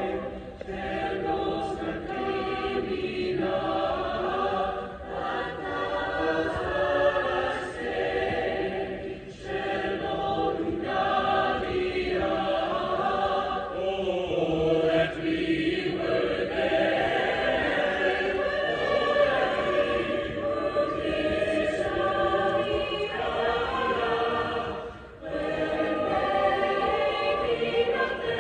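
A choir singing, with held chords that shift from phrase to phrase and short breaths between phrases about 9 and 25 seconds in.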